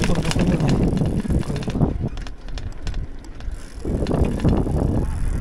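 Bicycle jolting and rattling over cracked, rough asphalt: a dense clatter of small knocks and rattles for about the first two seconds, easing off, then coming back for about a second around four seconds in.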